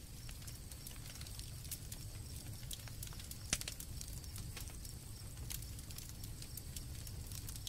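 Campfire crackling at night: irregular sharp pops and snaps, one louder pop about three and a half seconds in, over a low steady rumble of the burning fire, with crickets chirping faintly.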